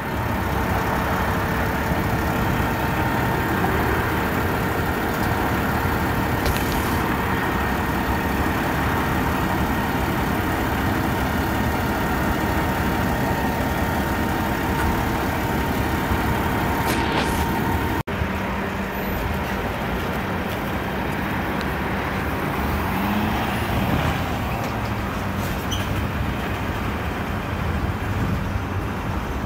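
A truck engine running steadily. It breaks off abruptly about 18 seconds in and goes on as a slightly different steady running noise.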